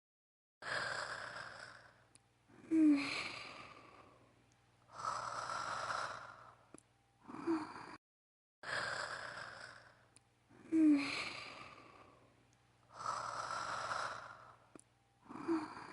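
Voice-acted snoring of a young woman: slow breathy inhales and exhales, with a short low snort about three seconds in. The same eight-second stretch of breaths plays twice, split by a brief cut to silence.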